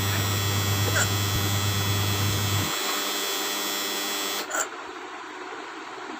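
A woman hiccuping: two short hiccups, about a second in and about four and a half seconds in, over a steady low hum that stops a little before three seconds in.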